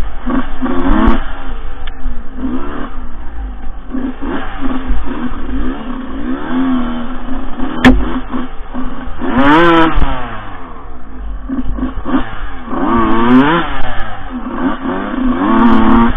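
Dirt bike engine revving up and down repeatedly as it rides a trail, its pitch rising and falling, heard from the bike itself. A sharp knock comes about eight seconds in.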